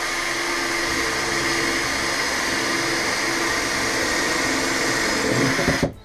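Hitachi cordless drill running steadily as it bores a hole through the side wall of a fridge, then stopping abruptly near the end.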